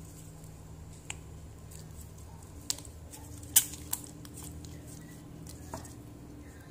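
Hands squeezing and folding a soft glue-and-hand-lotion slime, giving several sharp clicking pops as trapped air bursts, the loudest about three and a half seconds in. A steady low hum runs underneath.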